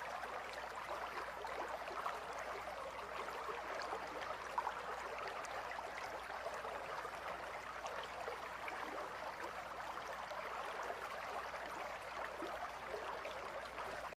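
River water flowing steadily, a continuous babble with small splashy crackles.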